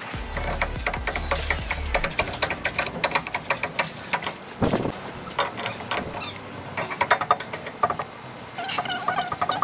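Irregular metal clinks and knocks from gloved hands handling a van's bare rear brake drum and hub, with short ringing squeaks among them. A low hum stops about two seconds in.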